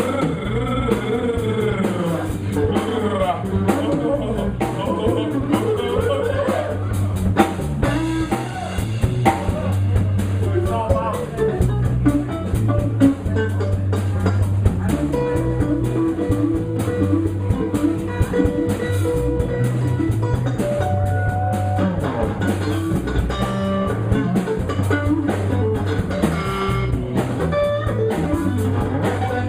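Live blues-rock band playing an instrumental break: a lead guitar solo with bent, gliding notes and some held notes, over bass and a drum kit.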